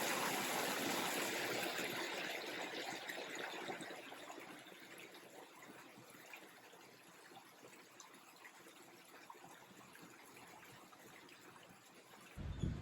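Running water, like a stream or brook. It starts suddenly, is loudest for the first couple of seconds, then fades away to a faint rush by about five seconds in.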